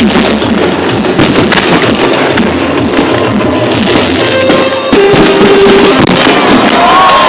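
Fireworks bursting and crackling in rapid succession, mixed with a song playing loudly.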